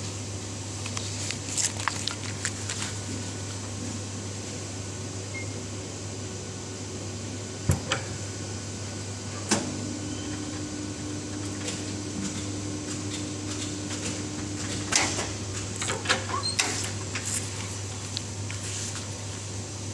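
Zipper-tape welding machine humming steadily, with clicks and rustling from handling the zipper and fabric. About halfway through, a click starts a steady buzz that lasts about five seconds and stops with another click, as the press head comes down to weld the zipper tape.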